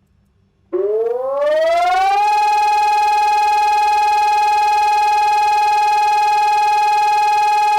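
Pavian 300 electronic warning siren starting up about a second in. Its pitch rises for about a second and a half, then it holds one loud, steady tone.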